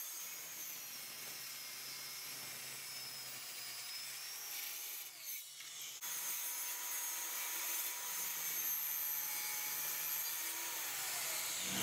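DeWalt circular saw cutting through a wooden board, the blade's noise steady; near the end the motor's tone falls in pitch as the saw winds down.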